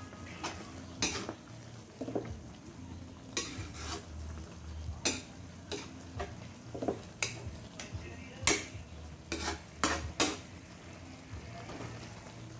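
A metal spatula stirring and scraping against a metal wok, with irregular sharp scrapes and clanks. Beneath them is the low sizzle of the wet noodle-and-vegetable mixture cooking.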